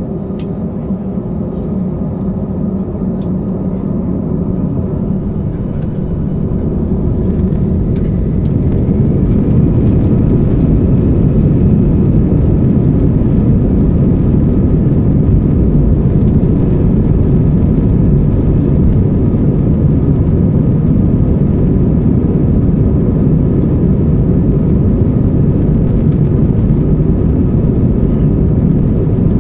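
Jet airliner's engines during takeoff: a steady low rumble with a faint whine, building in loudness over the first nine seconds or so as thrust comes up, then holding level.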